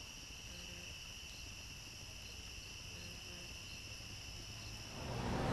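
Crickets chirping in a steady, faint, high-pitched drone. A rushing noise swells up near the end.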